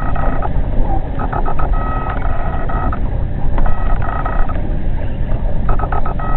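Fishing reel drag buzzing in spurts as a big catfish pulls line off the spool, a steady high whine that comes and goes over a low rumble.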